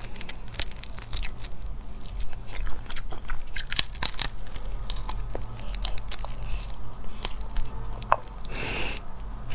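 A person eating spicy crayfish tails: close, wet chewing with lip smacks and many small sharp mouth clicks and soft crunches. A brief louder slurp near the end.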